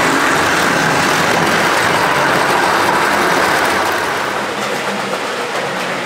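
O gauge tinplate model train, an electric locomotive with coaches, running on three-rail metal track: a steady noise of wheels on the rails and the motor that drops off about four seconds in as the train passes by.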